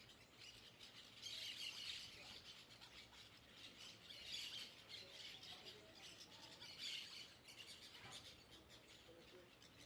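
Faint bird chirping: bursts of rapid, high chirps that come back every two to three seconds.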